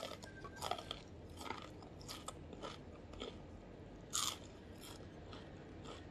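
Crunching and chewing of a crispy fried wonton (pangsit) being bitten into and eaten: irregular crisp crunches, the loudest about four seconds in.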